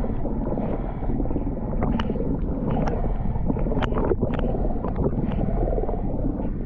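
Muffled underwater noise picked up by a submerged camera: a steady, dense rumble of moving water, with scattered sharp clicks and pops.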